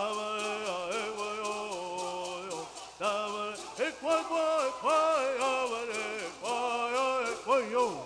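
A group of men singing a Southern California bird song in unison, with rattles shaken in a steady quick beat. The phrase breaks off just before three seconds in and resumes louder with more rise and fall in pitch.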